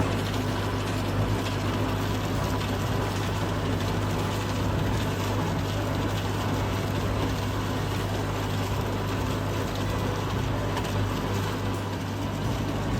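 An engine running steadily at a constant speed, with a strong low hum and no change in pitch or level.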